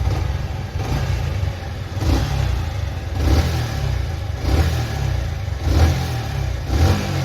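Yamaha R15 V3's 155 cc single-cylinder engine running and revved in about five short throttle blips, roughly one a second. A coil plate (stator) from another bike is fitted, and with it the engine's humming noise has gone; the old coil plate was the source of the noise.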